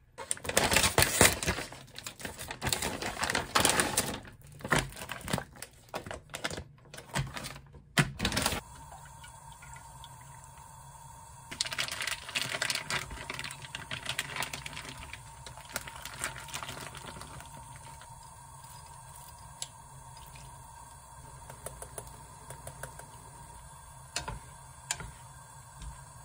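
Kitchen cooking sounds: about eight seconds of loud, rapid crackling and clicking, then a steady hum with scattered soft clicks as ingredients are dropped into a pan of red sauce and stirred with wooden chopsticks.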